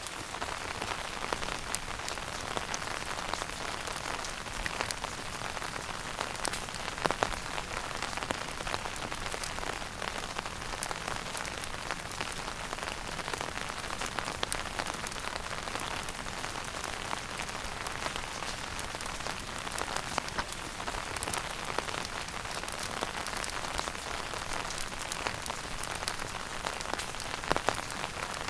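Wood fire burning in a fireplace: a steady hiss with frequent small crackles and pops, a sharper pop about seven seconds in and another near the end.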